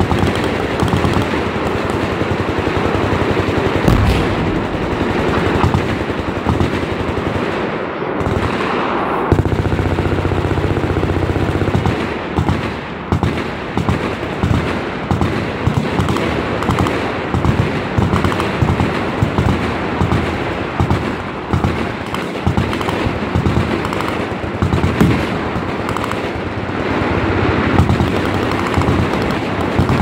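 Massed automatic fire from many machine guns along a firing line: a dense, continuous, overlapping clatter of shots, with a heavier bang about four seconds in.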